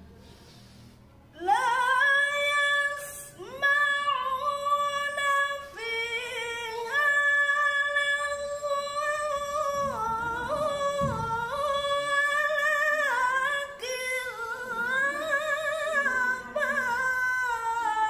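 A woman's unaccompanied Quran recitation (tilawah) in a high, strong voice. It starts about a second and a half in with a rising glide and runs in long held phrases full of wavering ornaments, with short breaths between phrases.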